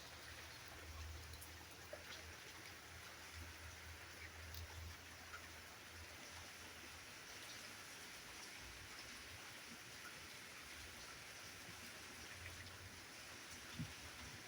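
Steady light rain, a faint even hiss with scattered drop ticks. A single short tap near the end.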